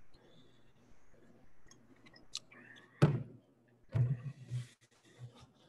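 A drink tumbler set down on a desk with a sharp knock about three seconds in, followed by a few softer thumps and a brief hiss, over a low steady hum.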